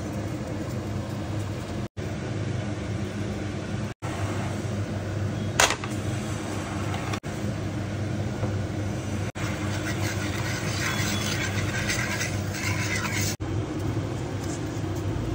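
Steady low kitchen hum, like a burner or motor running. It drops out for an instant at several cuts. There is a sharp click about five and a half seconds in, and a stretch of faint crackling from about ten to thirteen seconds in.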